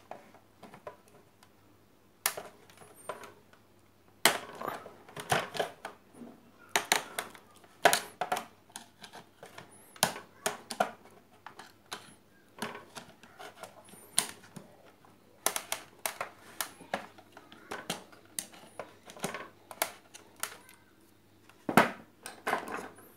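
Tools and small hard parts clicking and knocking during work on a blender, irregular sharp clicks in clusters of several a second with short pauses, mostly from about four seconds in.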